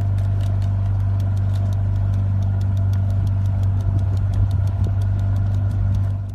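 An engine idling: a steady low hum with a faint, even ticking about five times a second, fading out near the end.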